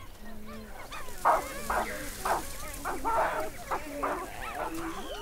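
A troop of geladas calling over one another: many short calls that bend up and down in pitch, loudest and most crowded from about a second in.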